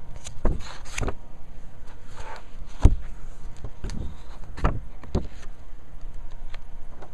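Handling noise from a hardback children's book held close to the microphone: a string of soft knocks and a brief paper rustle, with the sharpest knock about three seconds in.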